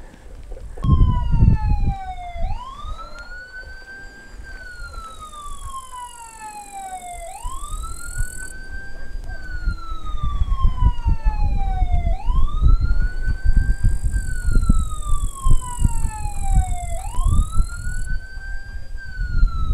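Siren wail starting about a second in, rising quickly and then falling slowly, repeating about every five seconds, four rises in all, over a low rumble.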